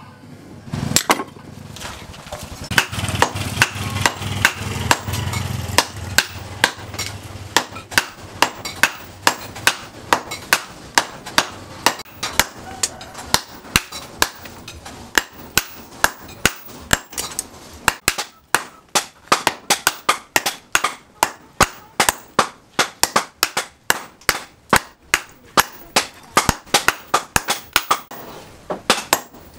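Hand hammer blows on hot leaf spring steel resting on a steel post anvil, in a steady rhythm of about two strikes a second, as the axe head is forged.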